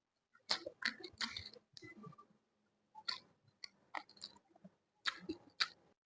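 Close-miked chewing of crunchy food, with three bouts of crackling crunches separated by short pauses.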